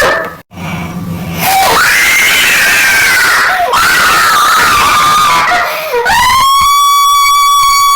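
Loud screaming sound effects, several in a row: screams with rising then falling pitch, then a long, steady, high scream held for the last couple of seconds.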